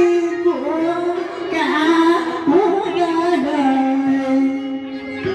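A woman singing a slow melody into a handheld microphone, her voice sliding between notes and holding one long note near the end.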